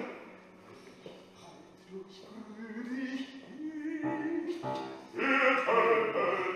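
Operatic singing: a loud held note breaks off at the start, a few seconds of softer singing follow, and full-voiced singing resumes about five seconds in.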